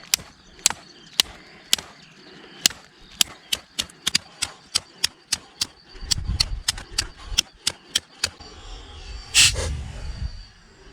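A series of sharp clicks, about two a second at first, then quickening to about three a second, with one louder knock near the end.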